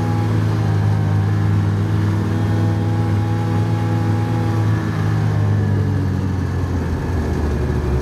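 Car engine running as the car drives off: a steady low drone whose pitch sags slightly after about five seconds.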